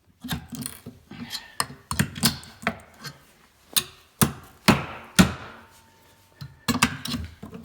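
Hammer striking the top of a spark plug clamped in a vise, a string of sharp metallic blows about two a second with a short pause near the end. The plug's top is being bent back and forth until it snaps off.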